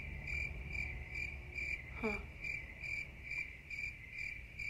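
An insect chirping steadily in a fast, even rhythm, about four chirps a second, all on one high pitch. A brief falling murmur of a voice comes about two seconds in.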